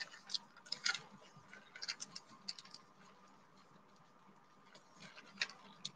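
Faint crinkling and crackling of a thin plastic bag sheet handled and smoothed flat by hand: scattered soft ticks and crackles, a cluster in the first couple of seconds and a few more near the end.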